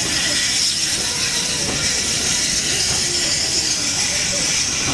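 Steam-hauled passenger train pulling out, its coaches rolling past close by with a steady rumble under a constant hiss of steam.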